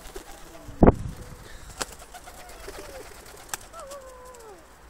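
Pigeons flapping their wings as they land and jostle on a child's hands, with one loud buffeting whoosh about a second in and a couple of sharp clicks. Two falling, whistle-like calls come in the second half.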